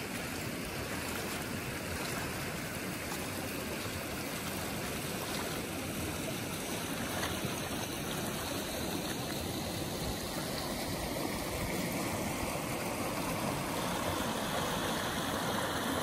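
Mountain creek water rushing steadily over rocks, growing slightly louder toward the end.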